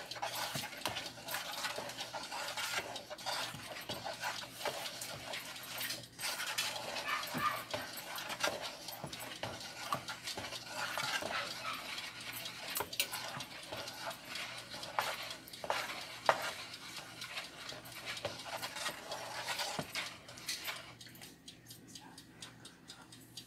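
Wooden spoon stirring a thick creamy liquid in a plastic bowl: wet sloshing with irregular clicks and scrapes of the spoon against the bowl. The stirring stops near the end.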